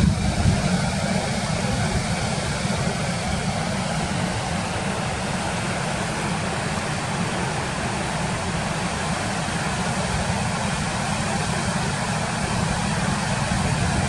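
Steady roar of a waterfall, a heavy, even rush of water pouring over rock ledges into a pool.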